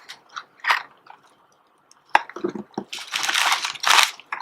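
Gift packaging being handled and opened: small clicks and taps, a sharp click about two seconds in, then a longer rustle of paper or cardboard near the end.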